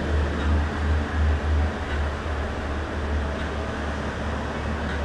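Steady ride noise inside a moving gondola cable car cabin: a low rumble that swells and fades unevenly.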